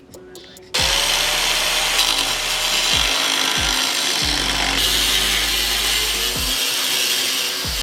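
Angle grinder spinning up about a second in and then cutting steel in one long steady pass, its sound getting brighter and harsher about halfway through.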